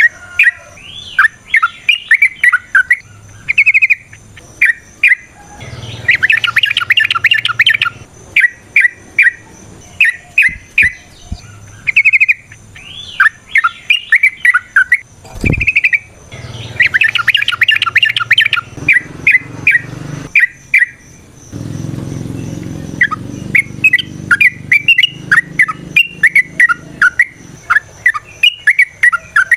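Yellow-vented bulbul (trucukan) singing in a long run of short chirping, bubbly phrases, breaking twice into a dense, rapid trill of notes, about six and seventeen seconds in. A faint low hum sits underneath, and a single soft thump comes about halfway through.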